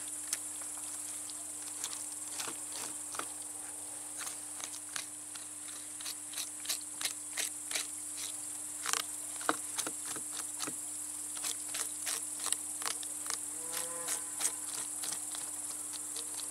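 A steady high chirring of insects in the grass, with irregular short clicks and scrapes of a knife cutting crucian carp on a burlap-covered wooden plank.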